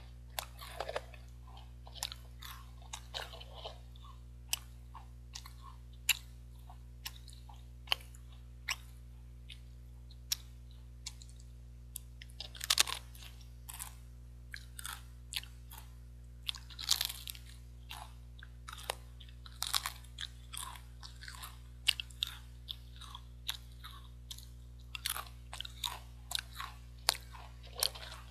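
Close-miked crunching and chewing of Pringles potato crisps: sharp crunches come in irregular clusters as chips are bitten, with quieter chewing between them.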